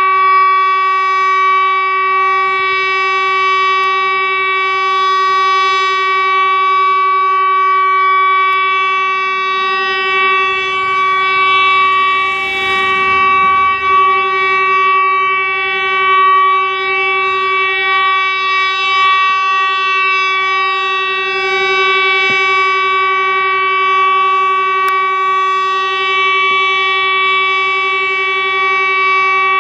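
Tesla UEAJ electronic siren, a rooftop array of horn loudspeakers, sounding one steady, unbroken tone with strong overtones that neither rises nor falls: the continuous test tone of the regular siren test.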